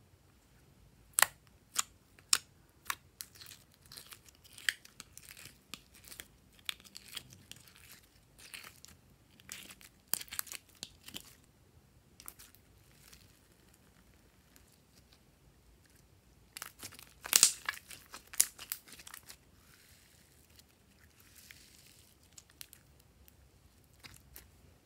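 Green glitter slime being peeled out of a plastic tray and squeezed in the hands: irregular sharp, sticky clicks and crackles, with a few loud snaps in the first three seconds and the loudest cluster about seventeen seconds in.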